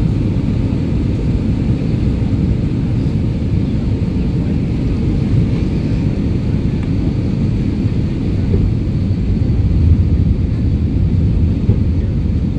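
Steady low rumble of an airliner's cabin noise on approach for landing, heard from a window seat over the wing.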